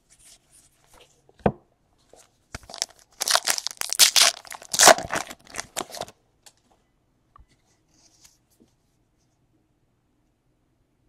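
A 2017-18 Donruss basketball card pack wrapper being torn open and crinkled, a dense crackle lasting about three seconds, after a single short knock about a second and a half in.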